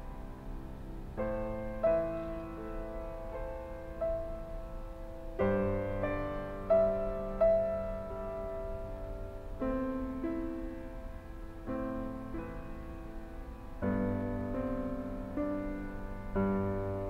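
Slow background piano music, with chords and melody notes struck every second or two and left to ring.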